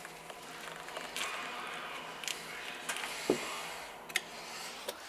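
Soft crinkling and scattered small clicks of an oily pleated oil-filter element being peeled out of its cut-open metal can by gloved hands, with a couple of sharper clicks in the second half.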